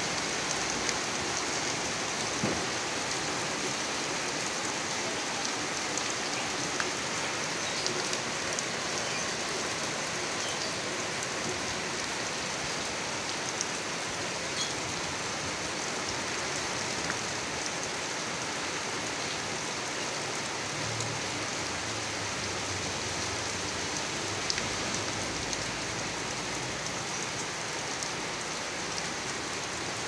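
Steady rain falling on a gravel yard, with scattered sharper drop ticks.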